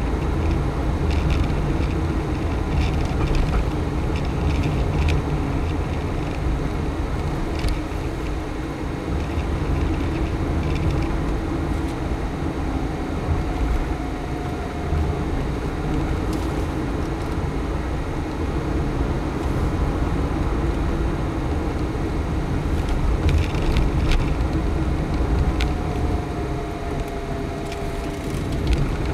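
Car driving slowly along a town street: steady engine and tyre rumble, with the engine note shifting slightly in pitch now and then.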